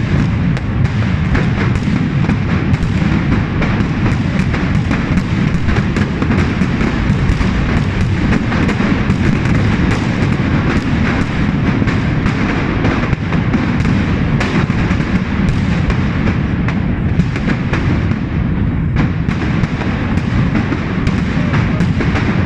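Continuous barrage of firecrackers and fireworks going off at Greek Orthodox Easter midnight, dozens of overlapping sharp bangs over a steady low rumble of further blasts.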